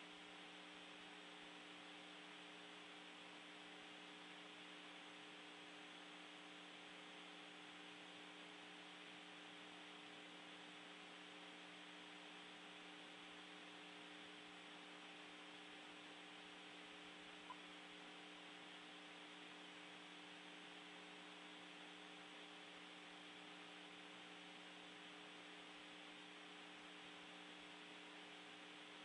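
Near silence: a faint, steady electrical hum and hiss on the space-to-ground radio audio line, with one tiny click about seventeen seconds in.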